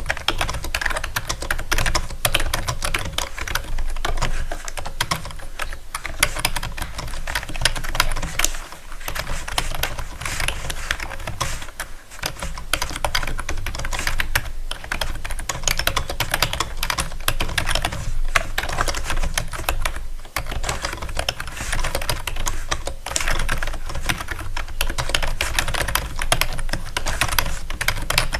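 Keys being typed on a keyboard: a fast, continuous stream of clicks with a few brief pauses.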